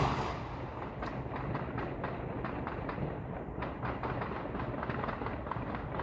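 Distant firecrackers popping and crackling in a rapid, irregular run of small sharp reports.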